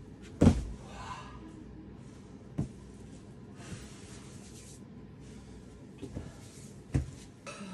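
A climber drops off the board onto a crash pad with a loud thud about half a second in, then breathes hard. Near the end come two sharper slaps as chalky hands are clapped and rubbed together.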